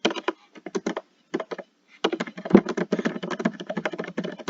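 Typing on a computer keyboard: quick runs of key clicks with short gaps, sparse at first and then a steady flurry from about halfway through.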